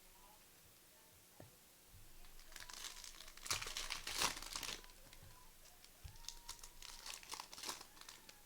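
Trading-card pack wrapper being torn open and crinkled, in two spells of crackling: the first and loudest a few seconds in, a shorter one near the end.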